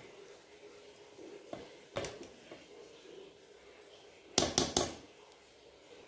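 Steel spoon scraping and clinking against the inside of a stainless steel pressure cooker while stirring cooked rice: one clink about two seconds in, then three quick, louder clinks near the end.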